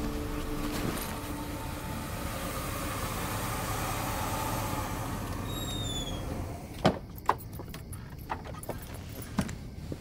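A car running steadily, the noise dropping away about six and a half seconds in, followed by two sharp clacks and a few lighter clicks.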